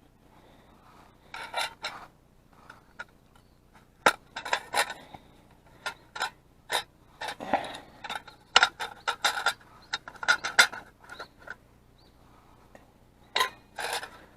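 Metal pieces of a Trangia camping cookset clinking, knocking and scraping against each other as they are handled, in a long irregular run of sharp clanks with short ringing, busiest in the middle and again near the end.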